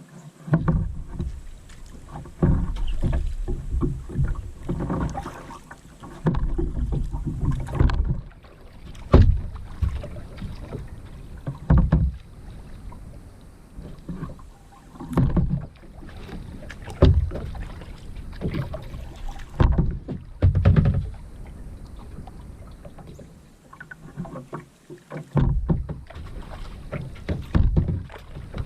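Kayak paddling: the paddle blades dip and splash into the water in repeated strokes every two to three seconds, over a low rumble.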